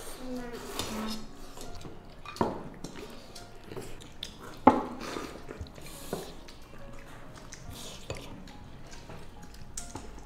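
Chopsticks and spoons clinking against porcelain rice bowls and metal serving bowls during a meal: scattered sharp clinks, the loudest about halfway through.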